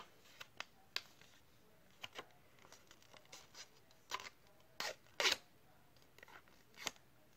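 A strip of paper crinkling and creasing as it is folded by hand: scattered short rustles and crackles, the loudest about five seconds in.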